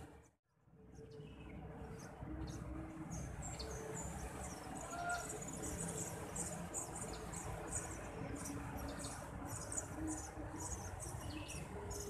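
Eurasian tree sparrow nestlings giving rapid, high-pitched begging chirps while an adult feeds them at the nest, over a steady low background hum. The sound briefly drops out just after the start, and the chirping thickens from about four seconds in.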